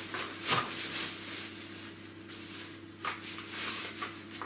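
Plastic shopping bag rustling and crinkling as groceries are taken out of it by hand, with sharper crinkles about half a second in and again about three seconds in, over a faint steady hum.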